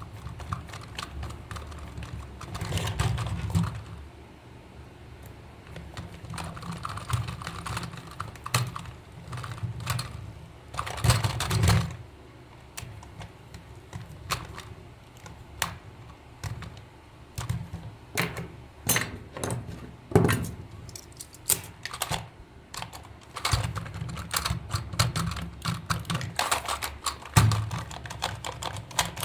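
Irregular light clicking and tapping, like small hard parts being handled and set down, with low thuds at a few points.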